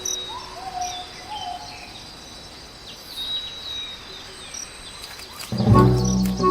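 Night forest ambience of insects and faint bird chirps, then near the end a loud, low, steady hoot from a Blakiston's fish owl, a parent calling to its chick.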